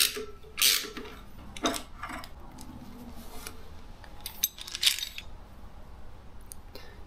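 Metal clinks and clatter of a Ford 4.6L V8's harmonic balancer and its bolt-on puller being lifted off the crankshaft nose and handled: a few sharp clinks in the first two seconds and another cluster about four and a half to five seconds in.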